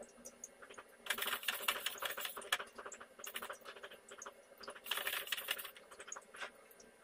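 Small dry grains rattling against a metal pot as a spatula stirs them while they roast, in three bursts of rapid clicking.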